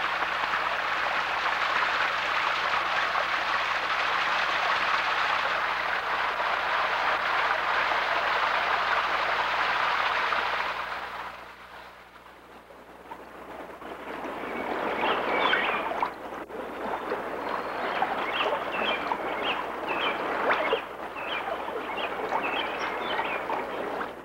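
Steady rushing water of a mountain stream, fading out about eleven seconds in. Running water then rises again, with a run of short high bird chirps near the end.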